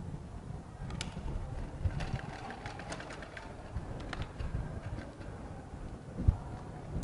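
Sewing machine stitching a seam in knit fabric, a low run under scattered clicks, with a sharp thump about six seconds in.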